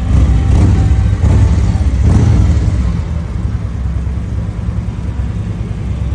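Harley-Davidson V-twin engine with Vance & Hines slip-on mufflers, revved in a few swells over the first three seconds, then settling back to a steady idle.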